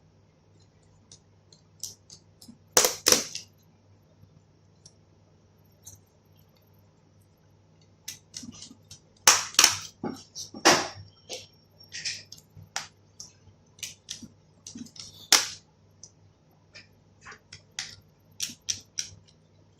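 Irregular small clicks and knocks of a screwdriver and screws against a laptop's plastic and metal chassis as the new battery's screws are put back in, with a few louder knocks in clusters.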